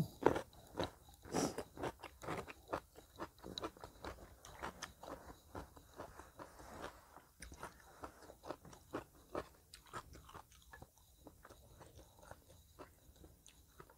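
Close-up crunchy chewing of a bite of raw cucumber, many quick crunches that are loudest at first and grow fainter and sparser as the bite is chewed down.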